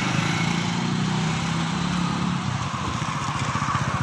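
A small engine running steadily at idle, a rapid even chugging with no change in speed.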